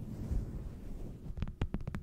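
Muffled low rumble of hands brushing close to an ASMR microphone. About three quarters of the way in, a quick run of light fingertip taps begins, roughly ten a second, like a patter of rain.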